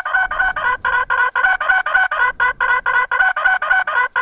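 Novelty multi-sound electronic motorcycle horn (a 'Tarzan horn') sounding two of its tunes at once: a loud, rapid pulsing electronic tone at about seven beeps a second, with a brief break about two and a half seconds in.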